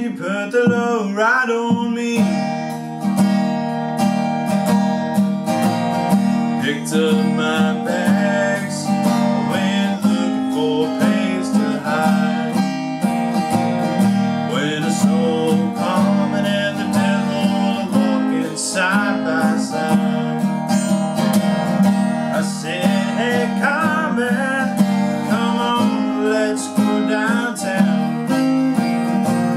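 Steel-string acoustic guitar strummed in a steady rhythm, with a man singing in phrases over it.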